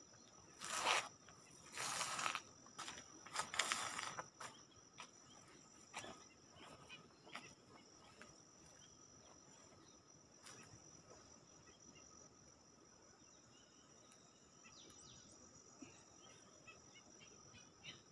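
Insects droning in a steady high-pitched buzz from the hillside vegetation, with a few short swishing noises in the first four seconds.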